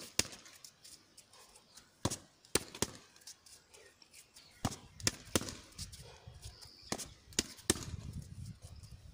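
Boxing-gloved punches and kicks smacking into handheld focus mitts: about ten sharp slaps at an uneven pace, often in quick pairs.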